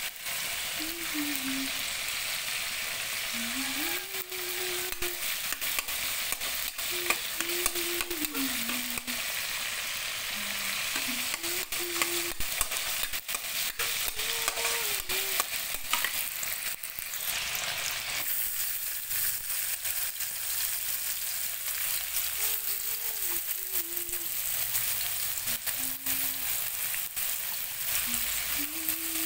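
Sliced red onion and minced garlic sizzling in hot oil in a metal wok, a steady hiss, with a metal spatula scraping and clicking against the pan as it is stirred.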